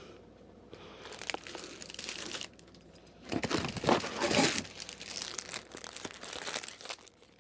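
Packaging crinkling and rustling as a packaged flag is handled and taken from the box, in uneven bursts that are loudest about halfway through.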